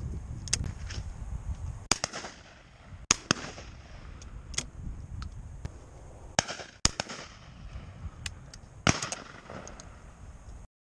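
Shotgun shots from several guns: sharp reports at irregular intervals, the loudest about 2, 3, 6½ and 9 seconds in and others fainter and farther off, several trailing a rolling echo. The sound cuts out just before the end.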